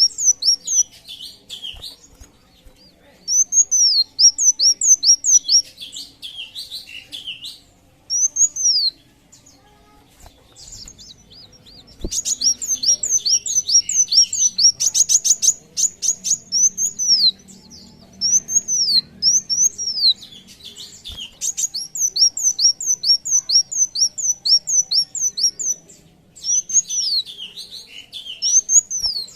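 Sunbird singing: fast runs of high, arched whistled notes, several a second, in phrases a few seconds long separated by short pauses, with a quick rattling trill about halfway through.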